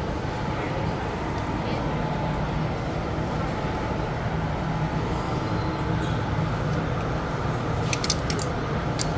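Steady background noise of a large shop, with a low hum. About eight seconds in, a few sharp clicks as plastic clothes hangers are knocked along a metal rail.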